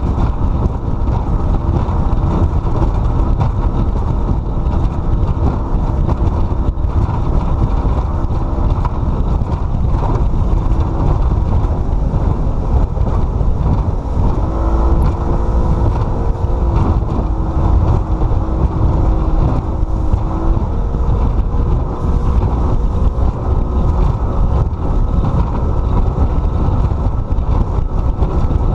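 Motorboat engine running underway, buffeted by wind on the microphone, a dense low rumble throughout. Partway through, the engine note climbs and holds higher for several seconds before settling.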